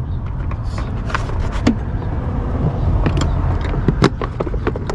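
Plastic engine-bay fuse box lid being unclipped and lifted off: a series of sharp plastic clicks and rattles, the loudest about four seconds in, over a steady low rumble.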